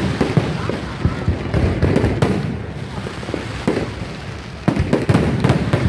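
Aerial fireworks going off in repeated bangs and crackles, with a rapid cluster of loud bursts near the end.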